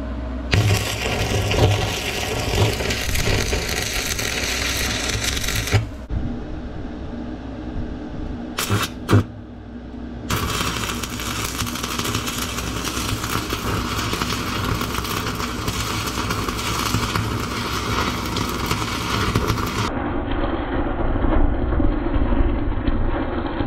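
A stick (arc) welder's electrode burning against steel, crackling and hissing in two runs: one of about five seconds, then after a pause with a couple of sharp taps, one of about ten seconds. A steady low hum sits underneath.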